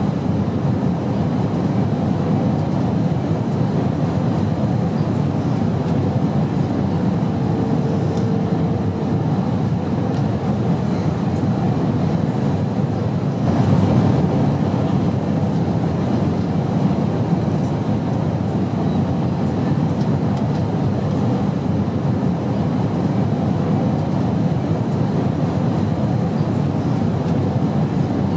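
Steady in-flight airplane drone, an even low rumble that swells slightly about halfway through.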